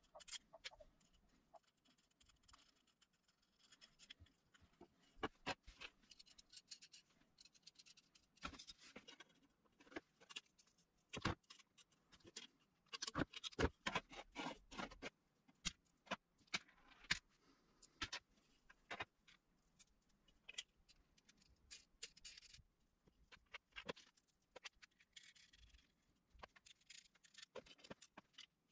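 Small metal parts handled in assembly: scattered clicks, taps and light scrapes of nuts, washers and threaded rod against each other and against plywood, busiest about halfway through.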